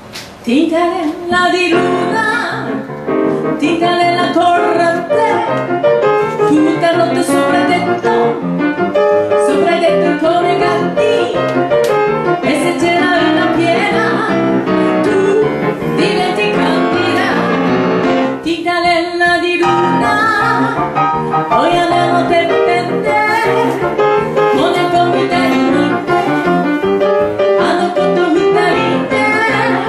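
A woman singing into a microphone with grand piano accompaniment. The voice breaks off briefly about two-thirds of the way through while the piano goes on.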